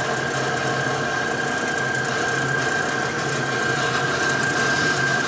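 Power tool running steadily while slowly shaving down an aluminum oil pan, with a constant high whine.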